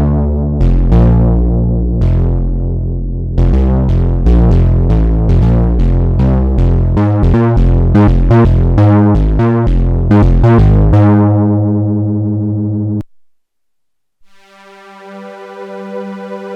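Arturia MicroFreak synthesizer playing a factory preset: a run of plucked, quickly decaying notes with a heavy low end, about two or three a second, ending in a held note that cuts off suddenly. After about a second of silence a different preset comes in, a soft sustained pad swelling up.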